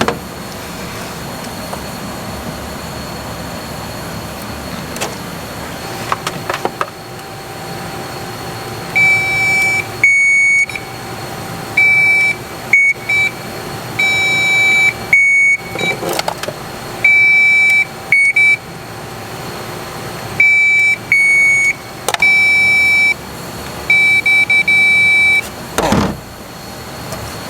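Electrical tester beeping as the brake light switch is checked: a steady high beep cutting in and out about a dozen times at uneven lengths as the switch opens and closes the circuit. A short thud near the end.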